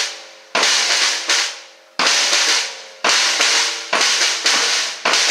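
A drum kit being played: loud single hits, about once a second, each ringing and dying away, with hits coming faster near the end.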